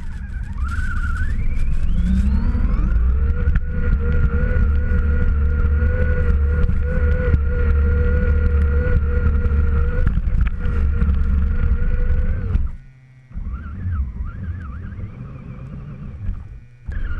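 Axial RC truck's electric motor and gears whining as it drives through snow, the pitch rising over the first few seconds and then holding steady over a heavy low rumble. About 13 seconds in the sound drops out briefly, and the whine comes back lower and wavering as the throttle is varied.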